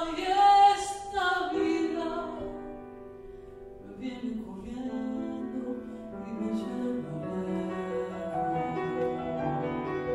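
Live Argentine folk-fusion ensemble playing: a woman sings a phrase over piano in the first two seconds, then piano, double bass and bowed viola carry on at a quieter level.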